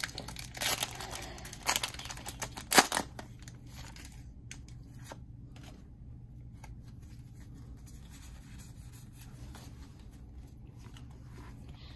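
Foil wrapper of a Pokémon trading-card booster pack being torn open, giving a few seconds of crinkling rips with the sharpest about three seconds in. After that there are only faint rustles of the cards being handled.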